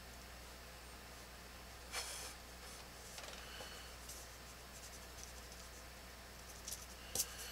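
Pencil drawing on drafting paper, a faint scratching, with a brief rustle about two seconds in as the architect's scale is shifted on the paper and a few sharp taps near the end. A faint steady hum runs underneath.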